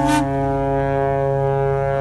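Several ships' horns sounding together in a long, loud chord; one higher horn cuts off just after the start while the others hold steady.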